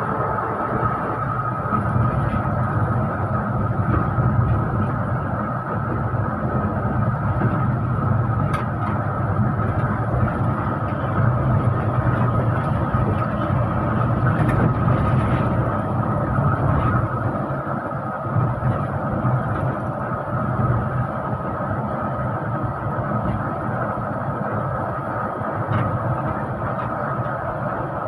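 Intercity bus running at speed, heard from inside the cabin: a steady engine and road rumble with a constant high whine over it.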